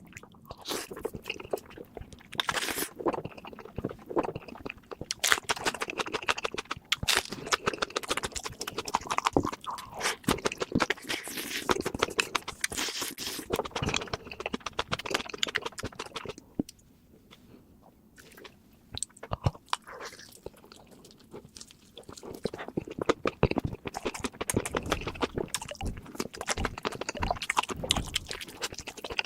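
Close-miked eating: a person chewing and biting food, with irregular crunching. The chewing pauses briefly about two thirds of the way through, then starts again.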